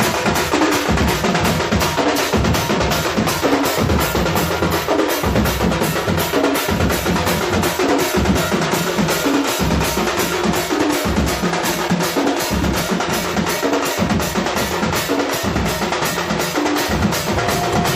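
Music with a steady, driving drum beat of about two to three hits a second, led by kick and snare drums, following a count-in.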